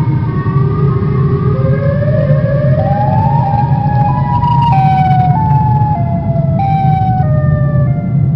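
Horror ambience track: a low rumbling drone under a high, wailing line of held tones. The tones climb in steps for about four seconds, then step back down.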